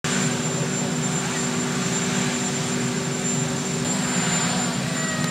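Marine One helicopter's turbine engines running steadily on the ground: a loud, even noise with a steady low hum and a thin high whine.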